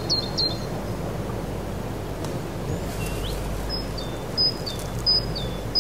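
A small songbird chirping over a steady rushing background noise. It gives a quick run of four high chirps at the start, then from about halfway several short two-part calls, each a high note stepping down to a lower one.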